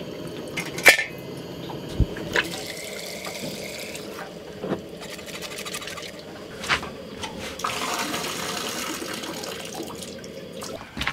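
Water pouring and splashing into a stainless steel percolator coffee pot, with a few sharp clinks of metal and glass.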